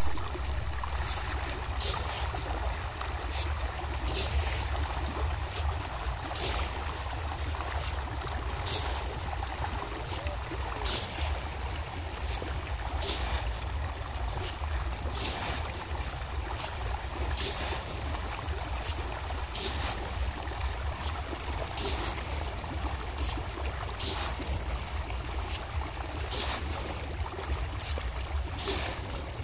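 A crowd of fish splashing and churning at the water's surface as they feed, with a hiss of scattered feed pellets landing on the water about every two seconds, over a steady low rumble.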